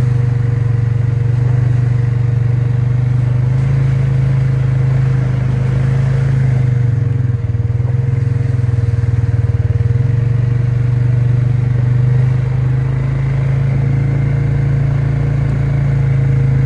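ATV engine running steadily under way on a dirt trail, a constant low drone that eases off and shifts briefly around the middle before settling again.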